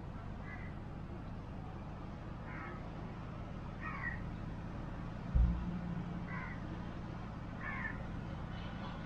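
Birds calling outdoors: about five short, harsh calls spaced a second or two apart, over a steady low rumble, with a brief low thump about five seconds in.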